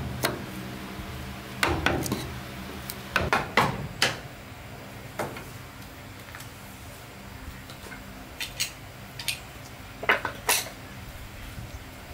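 Irregular clatter of hard objects being knocked and handled: about a dozen separate knocks at uneven intervals, a few of them ringing briefly, over a faint steady low hum.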